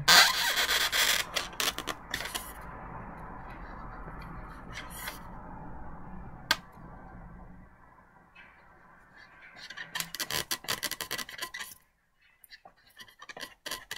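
Marker pen drawing on a latex balloon, with the twisted balloons of the sculpture rubbing and creaking in the hands: runs of quick strokes, loudest in the first two seconds, again about ten seconds in and near the end.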